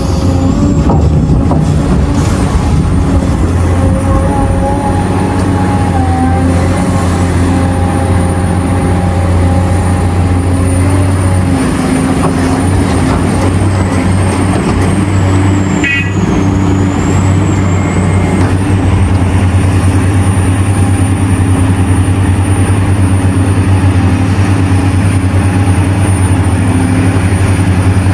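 Large diesel engines of mining excavators and haul trucks running steadily under load, with a low, even drone throughout and a single sharp knock about halfway through.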